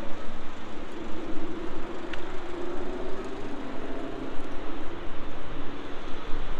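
Steady road traffic on a busy city street, with a passing vehicle's engine hum swelling and fading in the first few seconds.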